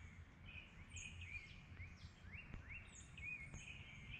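Faint birdsong: short high notes, falling in pitch, repeat about once a second, mixed with brief rising and warbling whistles, over a low steady background rumble.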